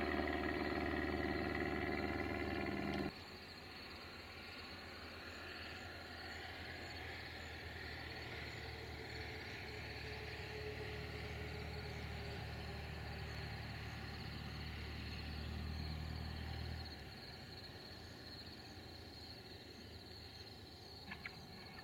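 Cessna 162 Skycatcher's four-cylinder Continental O-200 engine and propeller droning loudly overhead, cut off suddenly about three seconds in. A much quieter low engine drone follows as the plane comes in to land at low power, and it drops away at about seventeen seconds. Crickets chirp steadily throughout.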